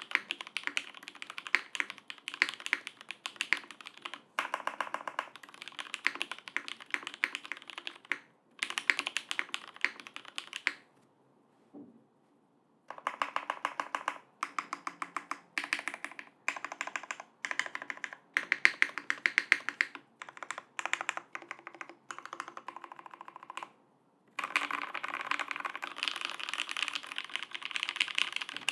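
Typing on a custom 60% keyboard with lubed Cherry MX Black Hyperglide linear switches in a top-mounted half aluminium plate, under GMK keycaps: bursts of fast keystrokes, with a pause of about two seconds near the middle.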